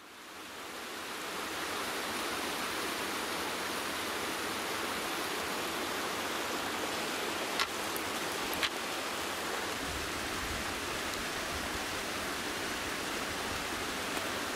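Steady rush of a mountain stream cascading down a rocky gorge, fading in at the start, with two faint clicks about halfway through.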